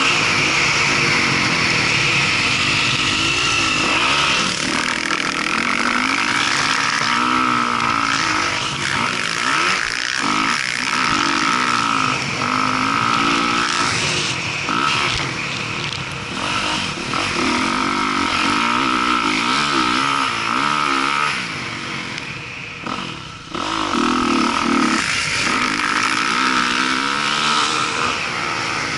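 Dirt bike engine revving up and down through the gears at speed, heard from a camera mounted on the bike. The revs dip once briefly near the three-quarter mark.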